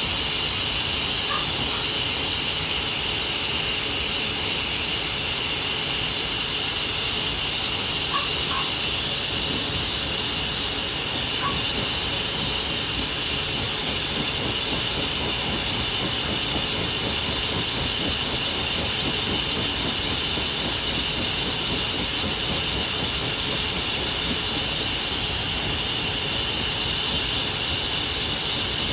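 Pet grooming dryer blowing steadily: a constant rush of air with a steady high whine over it.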